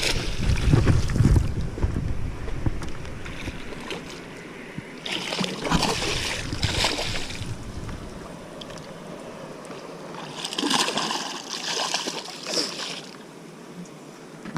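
Wind buffeting the microphone at first, then water splashing around a small boat in two longer bursts, about a third of the way in and again near the end.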